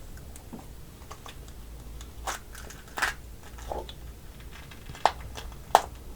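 Close-up eating sounds of soy sauce–marinated raw crab: about five sharp crunches of shell being bitten and cracked, the loudest near the end, with chewing between.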